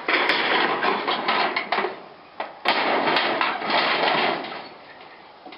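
Clattering, crunching noise of an old feed shed being crushed, full of sharp cracks and knocks, in two bursts with a short break about two seconds in, fading near the end.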